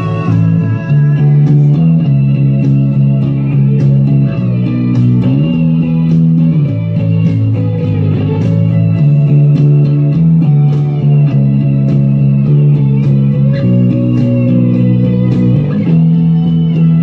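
Five-string electric bass played fingerstyle, holding deep notes that change every second or two, over a recorded band track with guitar and a bending melody line.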